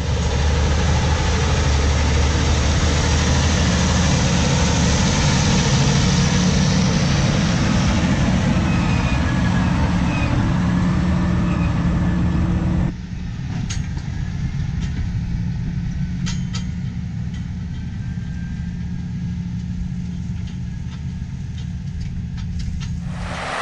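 Versatile Delta Track 550 tractor's 15-litre Cummins diesel running steadily and loud. About halfway through, the sound cuts to the engine idling more quietly, with a few light clicks.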